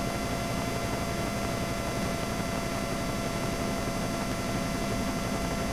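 Steady helicopter noise heard from inside the cabin: an even rushing hum with several faint steady tones over it, unchanging throughout.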